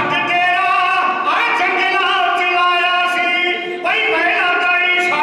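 A man's amplified voice chanting in long held notes that slide up and down between phrases, the declaiming style of a religious singer at a microphone.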